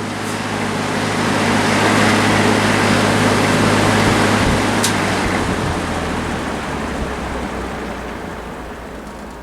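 Vintage Westinghouse all-metal box fan running with a steady rush of air and a motor hum. A click comes about five seconds in, after which the hum fades and the air noise slowly dies away as the blade coasts down on bearings that are still quite free.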